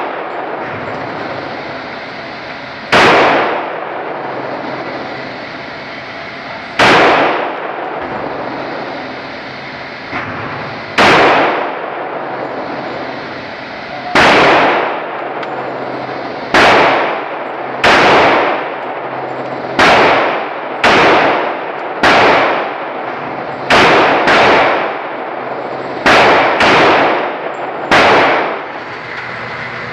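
Gunshots from a Glock 41 pistol in .45 ACP, fourteen in all, each ringing briefly off the walls of an indoor range lane. They start about four seconds apart and come faster later on, with two quick double taps near the end. A steady background hiss runs underneath.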